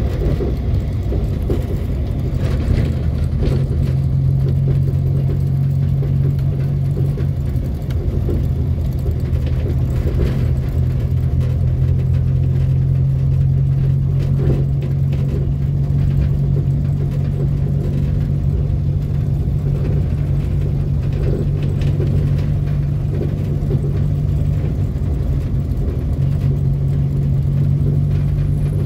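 Renault 4's small four-cylinder engine pulling the car along at a steady low speed, heard from inside the cabin as a steady hum that firms up a few seconds in and holds.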